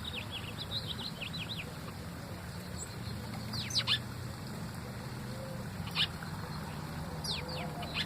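Small birds chirping: a quick run of short, falling high chirps in the first second and a half, then single brief calls about four, six and seven and a half seconds in. A steady low hum runs underneath.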